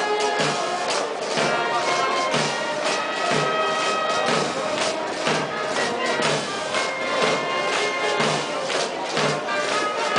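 Military band playing a march: brass holding sustained chords over a steady bass drum beat of about two beats a second.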